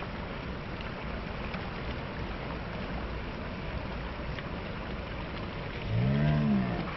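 Steady rushing of river water, with a cow lowing once, a single call about a second long near the end.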